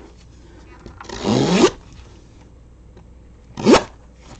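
Plastic shipping wrap and tape on a package being handled: a rubbing rasp about a second in that lasts about half a second, and a short, quick rising rasp near the end.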